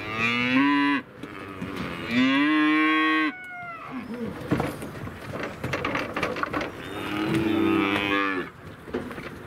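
Cattle mooing: three long calls, one at the start, one about two seconds in and one about seven seconds in, over faint background clatter.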